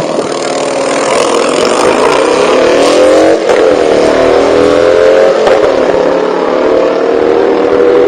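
A car's engine at full throttle accelerating down a drag strip, its pitch climbing, dropping at a gear shift about three and a half seconds in and again at about five and a half seconds, then climbing again. It grows louder over the first few seconds.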